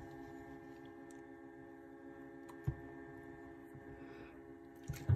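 Faint steady hum of a small egg incubator running, with soft knocks of a plastic water bottle against it about two and a half seconds in and again near the end.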